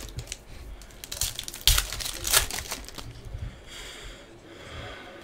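Foil wrapper of a Panini Prizm soccer card pack crinkling and tearing as it is ripped open by hand, a quick run of crackles and rips that is thickest about two seconds in, then softer rustling.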